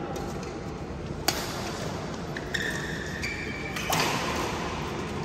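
Badminton rackets striking a shuttlecock: one sharp smack about a second in and a louder one near four seconds, ringing on in a large hall. Short high squeaks of court shoes on the synthetic mat come in between, over the steady hubbub of the hall.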